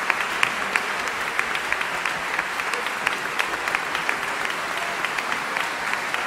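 Audience and band musicians applauding: many hands clapping in a dense, steady stream.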